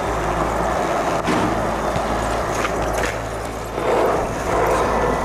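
Skateboard wheels rolling on a hard outdoor court, a steady rumbling roll with a few faint clicks. It gets louder about four seconds in.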